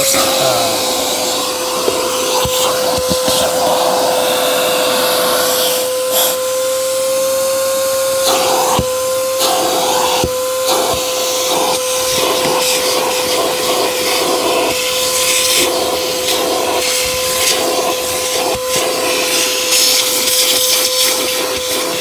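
Gaocheng vacuum cleaner running with a steady motor whine and rushing air, its crevice nozzle drawn over car floor carpet to suck up loose dust and grit. The airflow noise swells and dips as the nozzle moves, with scattered clicks of grit being pulled up.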